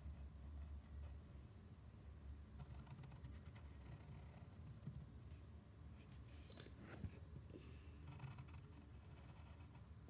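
Pencil scratching on paper in short spells of strokes, faint, with one light tap about seven seconds in.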